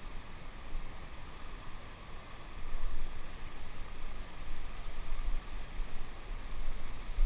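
Steady rush of flowing river water, with uneven low rumbling buffets on the microphone.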